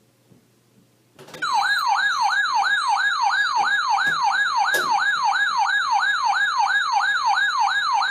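Electronic siren-style alert tone that starts about a second in and sweeps rapidly up and down, about three times a second, as an emergency alert signal ahead of a weather warning.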